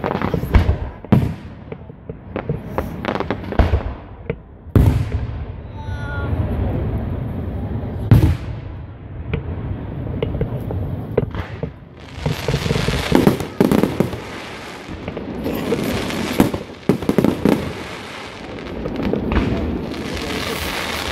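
Fireworks display: aerial shells and batteries bursting with a string of sharp bangs, the loudest about eight seconds in. From about twelve seconds in, a denser run of crackling bursts follows.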